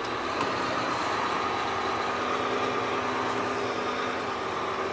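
Semi truck's diesel engine running steadily, heard from inside the cab, with a few steady engine tones over an even rumble.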